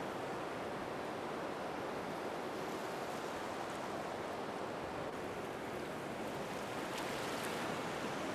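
Ocean surf: a steady, even wash of waves, fairly quiet.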